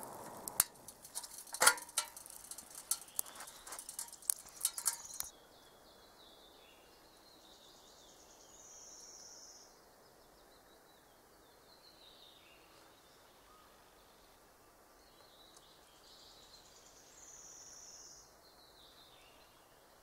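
A spoon clinking and knocking in a cooking pot, many quick sharp strikes for about five seconds as soup is eaten straight from the pot. Then it goes quiet apart from a songbird singing a short high, falling song twice.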